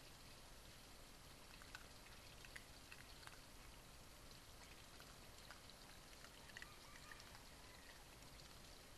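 Near silence: a steady low hiss with faint, scattered small clicks.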